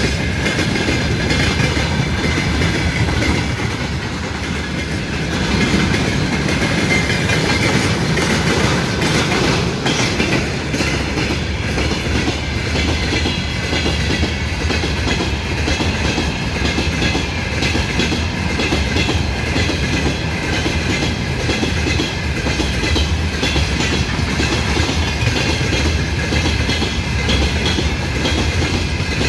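A train rolling past close by, its wheels clattering steadily over the rail joints, with no let-up through the whole stretch.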